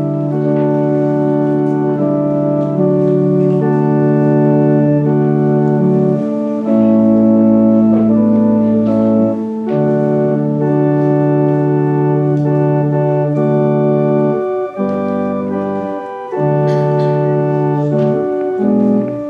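Organ playing slow, held chords that change every second or two: closing music after the final prayer.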